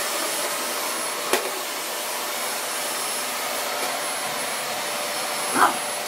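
Dyson vacuum cleaner running steadily, a hiss with a thin high whine. A sharp knock comes about a second in, and a short bark from the pug comes near the end.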